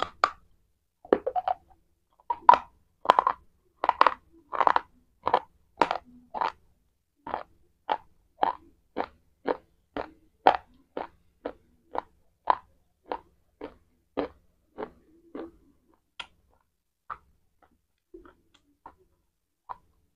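A bite into a white slate pencil with a sharp snap, then steady, rhythmic chewing crunches of the broken pieces, about one and a half a second. The crunches grow fainter and sparser near the end as the pieces are ground down.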